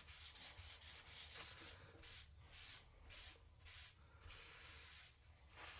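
Dye-soaked paper towel rubbed over a torched wooden coaster, a faint wiping sound in repeated strokes, about two a second.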